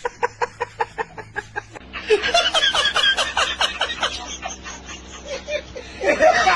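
People laughing: a fast run of short 'ha' sounds, about eight a second, for the first two seconds, then higher-pitched laughter over a steady low hum that dies down and swells again near the end.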